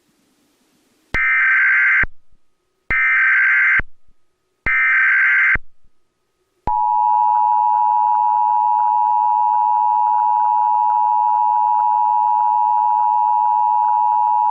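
Emergency Alert System broadcast tones for a national Emergency Action Notification test. First come three short bursts of digital SAME header data, each about a second long and about a second apart. About two-thirds of the way in, the steady two-tone EAS attention signal begins and runs on.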